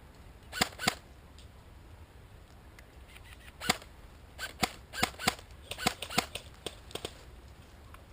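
Airsoft guns firing single sharp pops: a pair just under a second in, then about a dozen irregular shots from about three and a half to seven seconds in.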